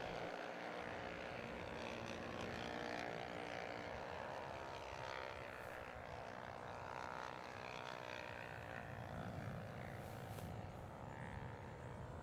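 Honda CB 300R single-cylinder race motorcycles running at speed on the circuit, a pack of engines heard faintly, their pitch rising and falling.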